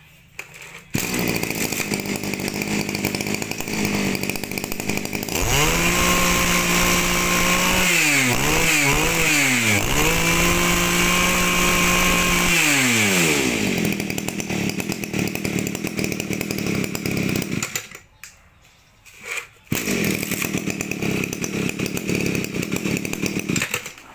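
A 26cc two-stroke brush cutter engine starts about a second in and idles. About six seconds in it is revved to a high, steady speed, with a few quick throttle blips in the middle, then drops back to idle. It stops about eighteen seconds in, runs again under two seconds later, and cuts off near the end.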